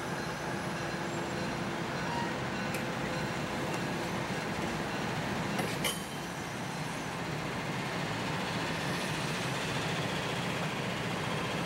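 Budd Rail Diesel Car passing close by: the steady running of its underfloor diesel engines mixed with its wheels rolling on the rails. There is one sharp click about six seconds in.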